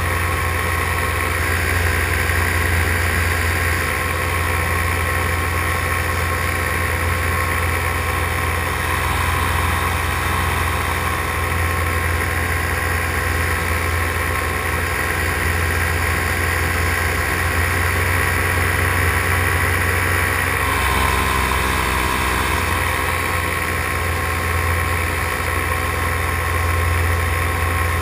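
Paramotor engine and propeller running steadily in flight, with a low, even drone. Its note shifts slightly about twenty seconds in.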